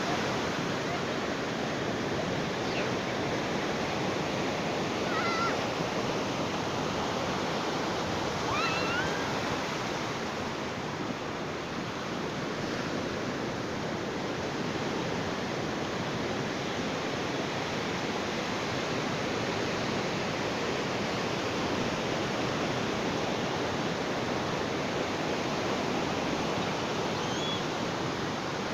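Ocean surf washing steadily on a beach, an even rushing with no single crashing wave standing out. Short rising bird calls sound a few times over it.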